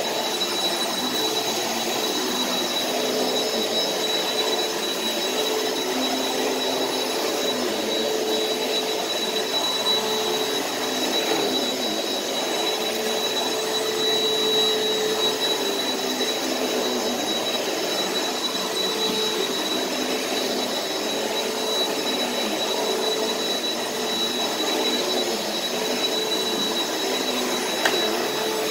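Bagless upright vacuum cleaner running steadily while it is pushed over carpet. The motor's noise carries a constant high whine.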